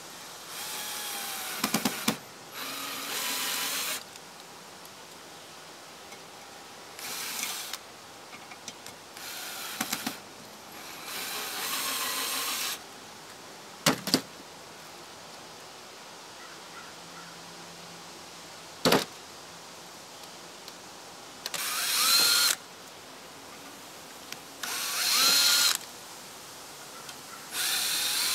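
Power drill driving 2-inch drywall screws straight into a bubble-glass concrete block, the screws threading into the block. It runs in about eight short bursts of one to two seconds each, with a few sharp clicks between them.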